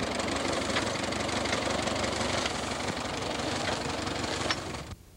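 Farm tractor engine idling steadily; the sound cuts off abruptly near the end.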